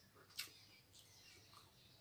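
Quiet eating by hand, mostly near silence, with one short sharp click about half a second in and a few fainter ticks.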